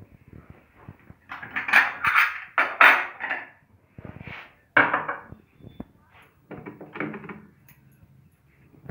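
Dishes and a small steel bowl clattering and scraping as they are handled on a kitchen counter, in a few short bursts.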